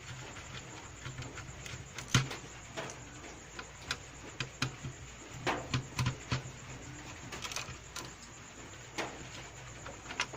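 Irregular clicks and taps of hands and tools working the plastic casing and parts of a Sony GTK-XB7 speaker during disassembly, with a sharper knock about two seconds in and a quick run of clicks around the middle, over a low steady hum.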